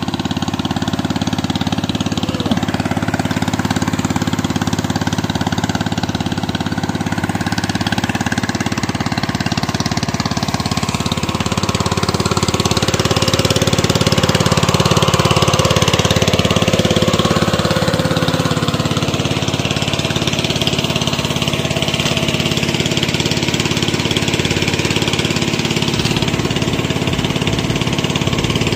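Engine-driven water pump running steadily and loudly as it pumps a fish pond nearly dry.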